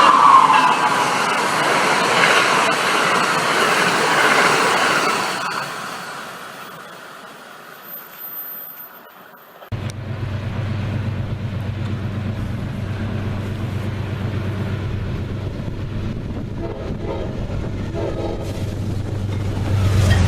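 An Amtrak passenger train passing at speed: the tail of its K5LA horn blast bends down in pitch as it goes by, and the rush and clatter of the cars fades away over about six seconds. After a sudden cut, a steady low hum.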